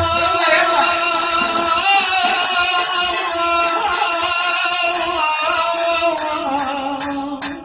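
A man singing a Kurdish song into a microphone, amplified in a small room, with keyboard accompaniment.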